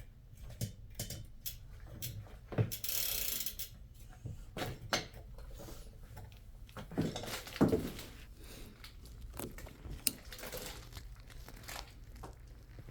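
Irregular clicks and knocks of things being handled, with a brief rustle about three seconds in and a couple of heavier knocks a little past halfway.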